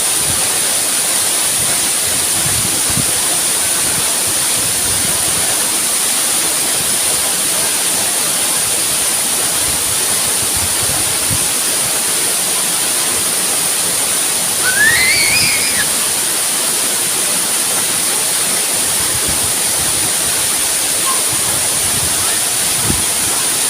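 Waterfall rushing steadily, with one short, rising-then-falling call about fifteen seconds in.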